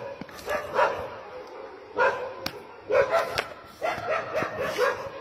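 Dogs barking repeatedly in short bursts, with a single sharp click about two and a half seconds in.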